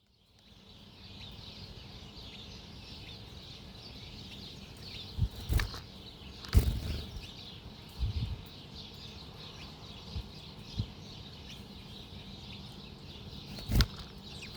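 Small birds' wings fluttering in short sudden bursts, about six times, as they come and go at a bird feeder, over a faint steady high-pitched background of birds. The sound starts after a moment of silence.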